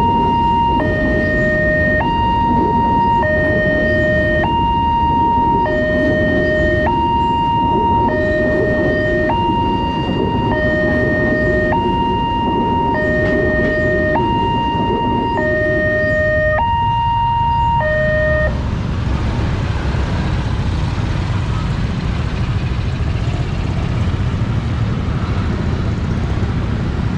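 Railway level-crossing alarm, the melodious new two-tone type used at Daop 8 Surabaya crossings, sounding a high-low chime that switches pitch about every 0.8 seconds over the rumble of passenger-train carriages passing. The alarm cuts off about 18 seconds in, once the train has cleared, leaving road traffic noise.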